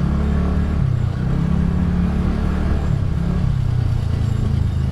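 TVS Ntorq 125 scooter's single-cylinder engine running steadily under way in traffic, its low hum rising and falling slightly with the throttle, over road and wind noise.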